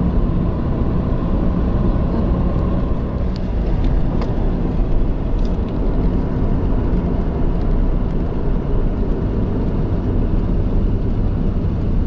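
A car driving along at a steady pace: even tyre and engine noise with no change in pitch, and a couple of faint ticks about three and four seconds in.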